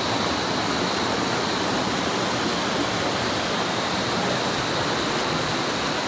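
Mountain stream rushing over rocks and spilling in a small cascade into a clear pool: a steady rush of water.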